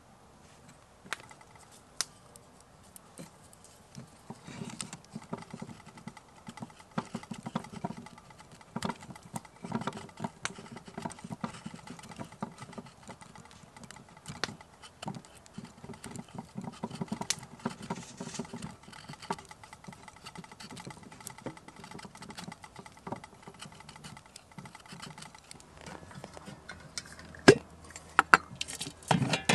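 A knife cutting slices off a block of food held over a wooden bowl, with irregular scraping and light taps as pieces drop into the bowl. Near the end a sharp knock and a metallic clatter as the lid of a small metal kettle is lifted off.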